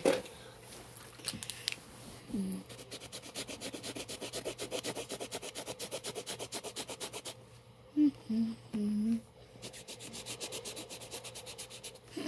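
Marker scribbling in quick, even back-and-forth strokes while colouring in, a fast scratchy rhythm that stops for a moment about two-thirds through. A few short hummed notes from a voice fill that gap.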